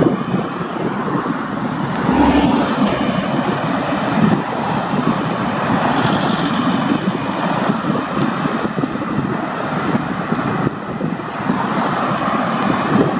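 Road traffic passing on a street, including a heavy truck, with wind buffeting the microphone; a steady noise with a heavier low rumble about two seconds in.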